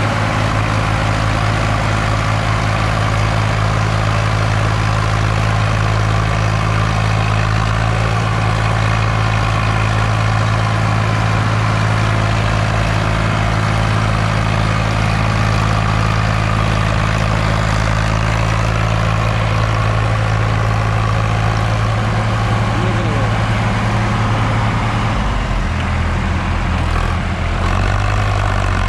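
Sonalika DI 745 tractor's diesel engine running steadily under heavy load as it pulls a fully loaded soil trolley, its front wheels lifting with the strain. Near the end the engine note drops lower.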